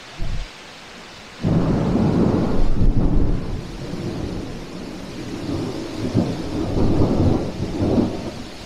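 A thunderclap breaks in suddenly about a second and a half in and rumbles on for several seconds, swelling again near the end, over heavy rain. A close strike that shook the ground.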